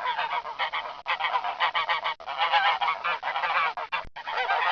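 A flock of geese or swans honking, many calls overlapping without pause, broken only by a very brief gap about four seconds in.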